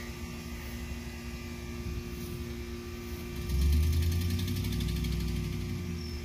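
A steady mechanical hum, joined about three and a half seconds in by a louder, low engine rumble that holds and eases slightly toward the end.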